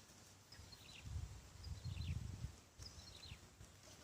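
An animal call repeating about once a second, each a short high note sliding downward, over a low rumble of handling or rustling noise that swells in the middle.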